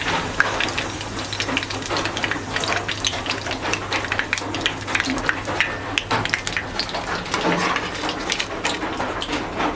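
Hot oil sizzling and crackling in a wok, a dense run of fine pops over a steady low hum.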